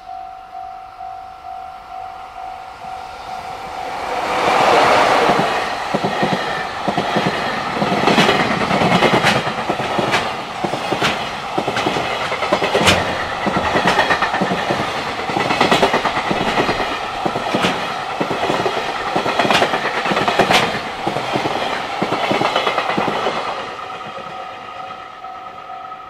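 Japanese level-crossing warning bell ringing in a steady, regular ding. From about four seconds in it is drowned out by a JR Freight container train passing close by: a loud rush of wheel-on-rail noise with a run of sharp clacks over the rail joints. The bell comes back through as the train's tail passes near the end.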